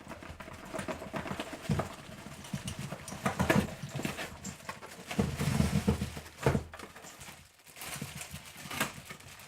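Metal padlocks knocking and clunking against each other and the box as a package of locks is unpacked by hand, in irregular knocks with louder clunks spread through.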